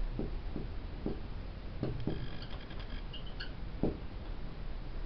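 Felt-tip marker writing on a whiteboard: a series of soft taps and strokes, with a few brief high squeaks from the marker tip near the middle.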